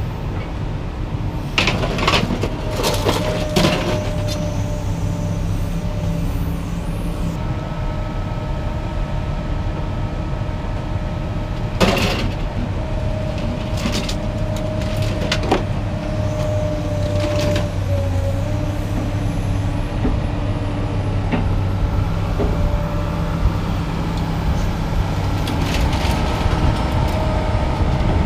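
Heavy scrap-handling machine with a lifting magnet, its engine running steadily while metal scrap clanks and bangs at intervals; a cluster of knocks a couple of seconds in and the loudest bang about twelve seconds in.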